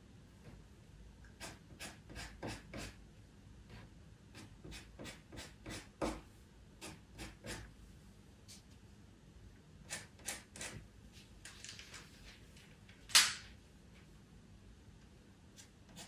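Pastel pencil flicking short, light strokes on Pastelmat paper: quiet, irregular scratches. About thirteen seconds in comes one louder, brief hiss.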